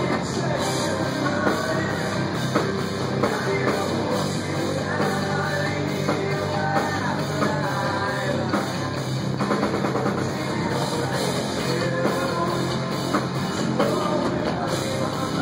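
Live rock band playing at full volume: electric guitar, bass guitar and drums under a sung vocal line, heard from within the crowd.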